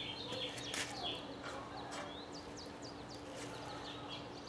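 Birds chirping: short, high, falling chirps scattered throughout, with a quick run of repeated chirps near the end, over a faint steady low hum.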